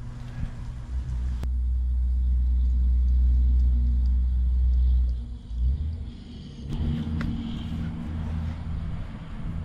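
A deep, steady rumble that builds over a few seconds, holds, and drops away about five seconds in. A fainter low hum with a few light clicks follows.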